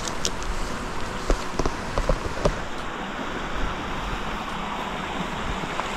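A creek running high with a steady rush of water. A few light clicks come in the first couple of seconds.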